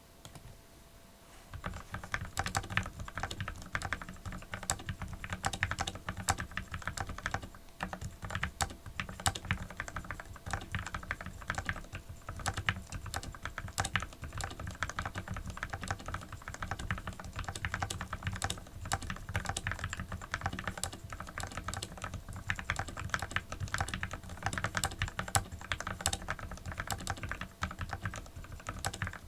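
Fast, continuous typing on a UT47 40% mechanical keyboard with lubed Everglide Sakura switches in a 3D-printed case and plate: a steady stream of keystroke clacks that starts about a second and a half in.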